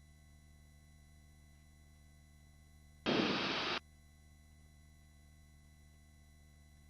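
Helicopter headset intercom feed: a faint steady electrical hum, broken about three seconds in by a sharp burst of hiss lasting under a second, as a microphone briefly opens and lets cabin noise through.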